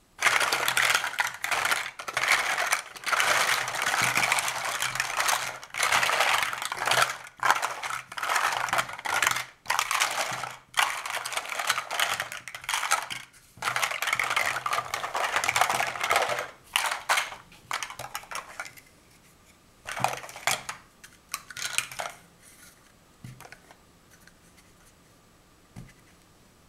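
Large plastic Mega Bloks First Builders blocks clattering against each other on a tabletop as they are pushed around and sorted by hand: a dense rattle for most of the first eighteen seconds, then a few separate knocks as single blocks are set down.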